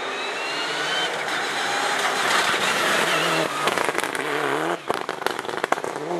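Mitsubishi Lancer Evo IX rally car's turbocharged four-cylinder engine at full throttle, the pitch rising as it approaches and growing louder as it passes close by. After that the note drops and rises again as it shifts down, with a string of sharp crackles and pops near the end.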